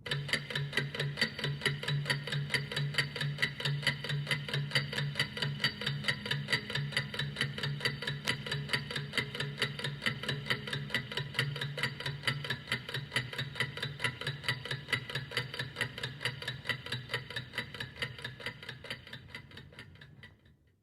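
Steady, rapid mechanical ticking, about five ticks a second, over a low steady hum, fading out near the end.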